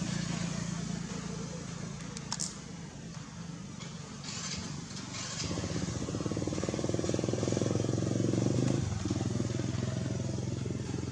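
A motor engine running steadily, getting louder about halfway through and easing slightly near the end, with a short click about two seconds in.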